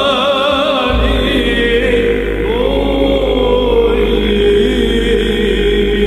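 Byzantine chant: a cantor sings a wavering, ornamented melody over a sustained basso profondo drone (ison) on a very low G. The drone is briefly absent at the start and re-enters about a second in, then holds steady under the melody.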